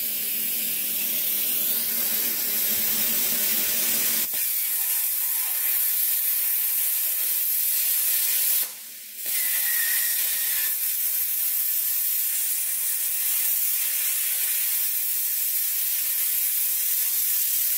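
Plasma cutter cutting through a metal seat bracket: a steady hiss from the torch. It stops briefly about nine seconds in, then starts again.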